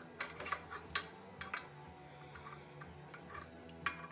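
Sharp metallic clicks and taps as the steel pipework and fittings of a high-pressure air compressor are handled and fitted: several close together in the first second and a half, then one near the end, over a steady low hum.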